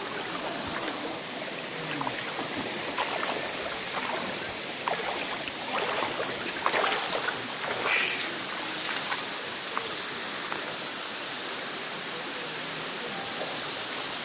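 Steady rushing of a waterfall and the river below it, an even, constant hiss of falling and flowing water.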